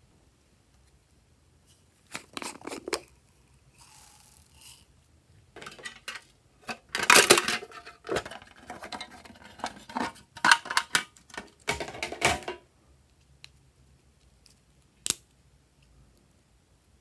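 Handling noises of slime add-ins being picked up and placed over a glass dish: clusters of clicks, taps and crackles, the busiest spell in the middle, then a single click a few seconds before the end.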